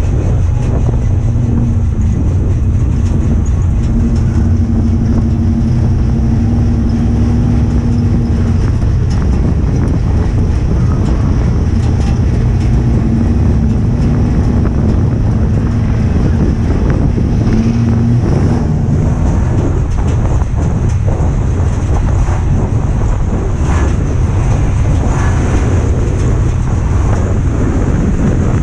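Ford Crown Victoria race car's V8 engine running hard at racing speed, heard from inside the stripped cabin. The engine note holds steady for stretches, then drops and picks up again, over a constant low rumble and rattle.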